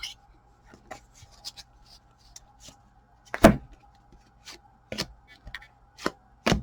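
Trading cards being handled and flipped through: scattered light clicks and taps of card stock, with a sharper knock about three and a half seconds in and another near the end.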